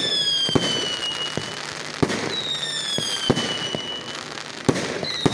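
Aerial fireworks going off: sharp bangs of bursting shells every second or so, with whistles that fall in pitch and last a second or two each, heard three times.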